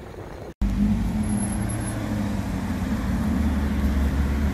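Maserati GranTurismo's V8 engine running at low revs as the coupé drives slowly past, a steady low engine note that cuts in about half a second in after faint street noise.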